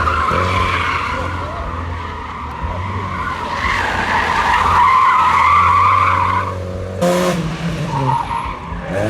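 Historic rally car running hard with its tyres skidding on the road surface, loudest about five to six seconds in. The sound changes abruptly about seven seconds in.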